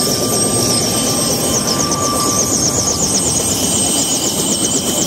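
Bell 206B3 JetRanger helicopter running on the ground close by: a high turbine whine over a fast, pulsing rotor beat.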